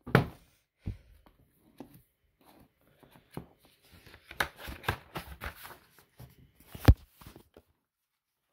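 Hands handling and opening a large hardback book: paper rustling and pages turning, with short knocks against the table. The loudest sounds are a knock right at the start and a sharp thump about seven seconds in.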